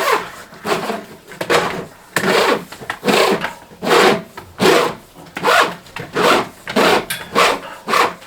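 Rhythmic rasping strokes against wood, about one and a half a second, like a hand saw or cable being drawn through a drilled hole in timber framing.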